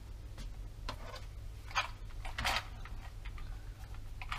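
Handling noise: faint scattered clicks and two short rustles over a low steady hum.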